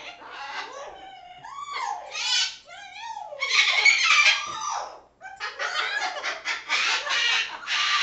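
Parrots calling: gliding whistles and chatter at first, then loud harsh squawks about three and a half seconds in, and a dense run of squawks from about five and a half seconds on.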